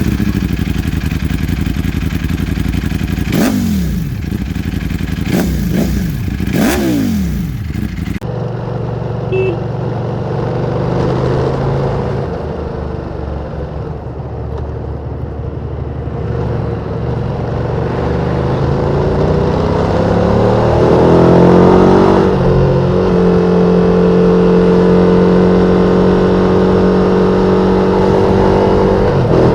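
Ducati Panigale V2 twin-cylinder engine with the stock exhaust, heard while riding. The revs drop three times in the first several seconds, with wind noise over the microphone. The engine then runs steadily, rises in pitch about twenty seconds in, and holds the higher revs.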